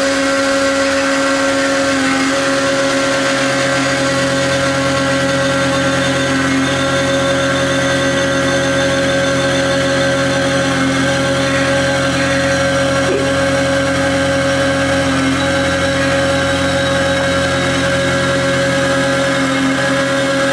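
Tormach CNC lathe turning the outside diameter of a 6061 aluminum wheel across its holes, an interrupted cut. The cut gives an unusual steady pitched hum with several overtones.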